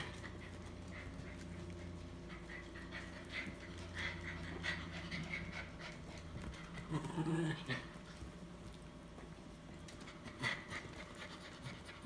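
Mother dog whining, two short cries whose pitch bends up and down, wanting back into the pen with her puppies.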